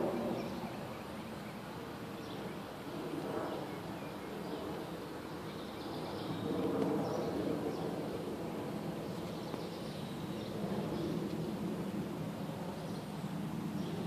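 Outdoor background: a steady low rumble with faint, scattered bird chirps.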